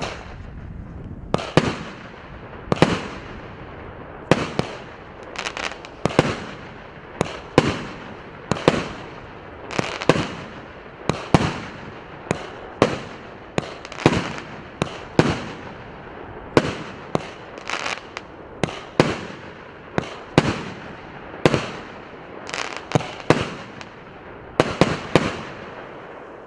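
A 19-shot, 1.2-inch consumer firework cake firing: a sharp bang about every second, over a continuous hissing, crackling noise.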